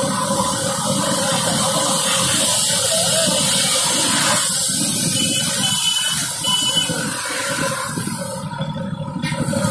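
Busy street traffic noise, a steady rushing din of motorcycles and auto-rickshaws moving along the road. A few short high beeps sound a little past the middle.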